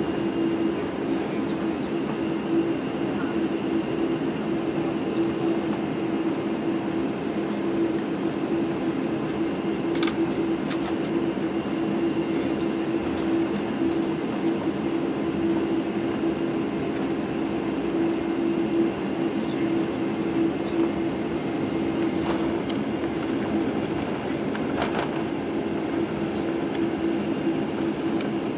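Steady cabin noise of a Boeing 747-8i taxiing, heard inside the cabin by the wing: the GEnx engines running with a steady hum and a held tone, and a few faint clicks now and then.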